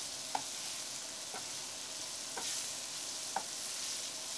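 Beef strips, red pepper strips and spices sizzling in a hot frying pan while a wooden spatula stirs them, with a short scrape of the spatula on the pan about once a second.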